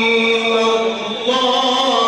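A male Qur'an reciter in the melodic mujawwad style, holding one long drawn-out sung note. About a second and a half in, he steps to another pitch and ornaments it.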